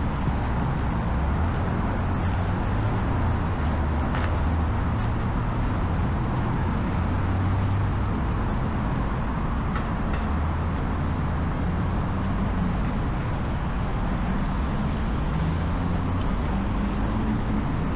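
Steady city road traffic: a continuous rumble of car engines and tyres passing.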